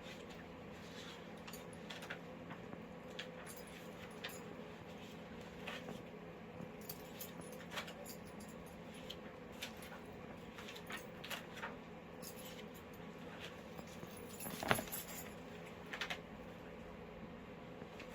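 Metal curb bit, curb-chain hooks and buckles of a bridle clinking and jingling lightly as the bit is threaded onto the leather cheek pieces: scattered small clicks, with a louder jingle about three quarters of the way through. A faint steady hum sits underneath.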